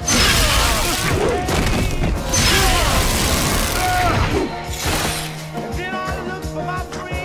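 Loud crash of breaking window glass as a person is hurled into a plate-glass window: a crash right at the start and a second one about two seconds in, over dramatic film-score music that carries on after.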